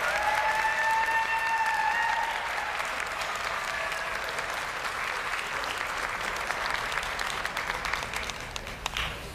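Spectator applause that slowly dies down, thinning to separate claps near the end. A high held note sounds over it for the first two seconds.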